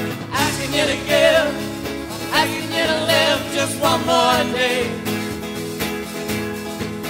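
Live band playing a song: sung vocal phrases with a wavering pitch over sustained guitar chords.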